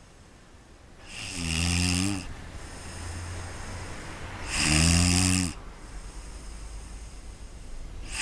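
Snoring in deep sleep: two long, loud snores about three and a half seconds apart, and a third beginning at the very end, with quieter breathing between them.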